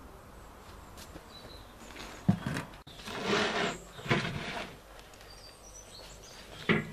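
A sharp knock about two seconds in, then scuffing footsteps on a gritty concrete yard, with another knock near the end.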